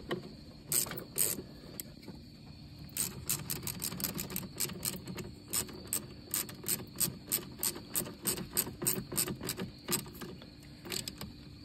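Hand ratchet wrench clicking as a nut is worked on a terminal stud: a couple of clicks about a second in, then a steady run of quick clicks, several a second, for about seven seconds.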